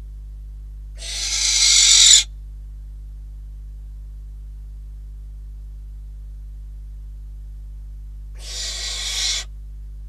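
Barn owl giving two harsh, hissing screeches: the first about a second in, swelling in loudness and cutting off sharply; the second near the end, shorter and quieter.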